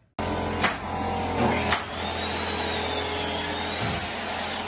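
Air compressor running steadily, with three sharp shots from a pneumatic nail gun fastening wall framing, about half a second, a second and a half, and four seconds in.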